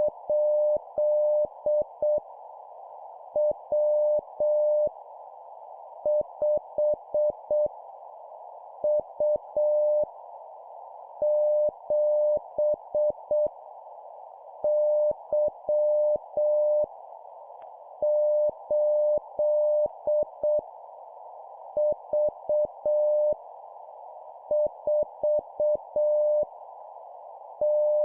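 Morse code (CW) practice tone at 7 words per minute keying random letters and numbers. It is a single steady pitch sent in dots and dashes, one character every two to three seconds with long gaps between, over a steady background hiss.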